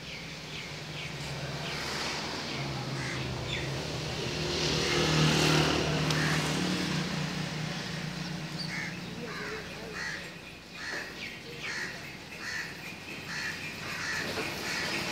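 Crows cawing outdoors, a run of short harsh calls repeated at even spacing in the second half. A low hum swells and fades in the first half, loudest about five seconds in.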